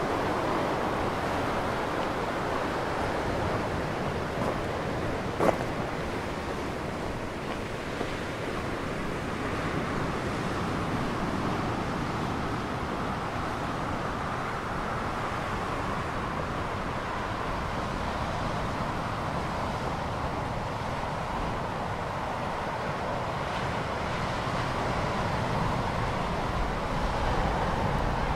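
Sea surf washing steadily over a rocky shore, mixed with wind on the microphone. A single sharp click about five and a half seconds in.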